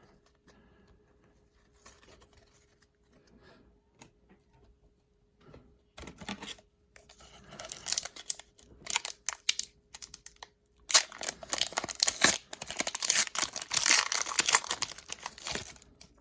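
A foil hockey card pack being torn open and its wrapper crinkled: crackling in short bursts from about six seconds in, then denser and louder for the last five seconds.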